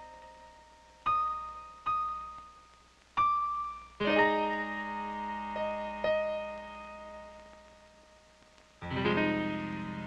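Film score of slow, sparse piano: a few single notes about a second apart, then full chords that ring out and fade, with a new chord struck near the end.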